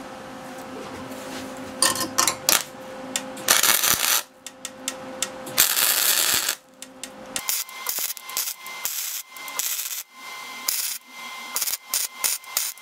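Flux-core wire-feed welder laying spot tacks on the thin, rusty steel of a mower deck: a sputtering arc crackle in short bursts, a couple lasting about half a second, starting about two seconds in. From about halfway the bursts come in a rapid string because the footage runs sped up.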